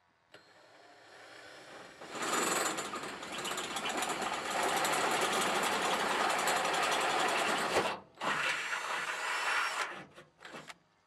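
Cordless drill with a twist bit boring through the steel floor of a pickup bed. It starts softly, bites in with a loud grinding whir about two seconds in, stops briefly near eight seconds, runs again, and ends with a couple of short bursts.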